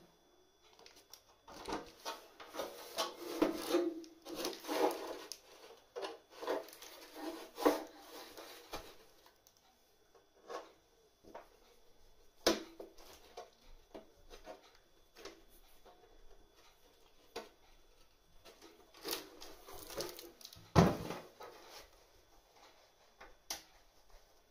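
Irregular handling noises: rubbing and scraping with knocks and clicks, busiest in the first several seconds and again around twenty seconds in, where a single sharp knock is the loudest sound.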